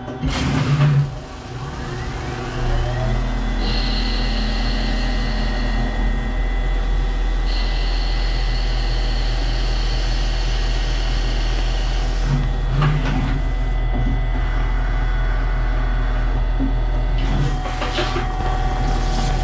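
CNC lathe running: the spindle winds up with a rising whine, then runs with a steady whine over a low hum. A higher tone joins in twice for a few seconds, and there are a few clicks and knocks near the end.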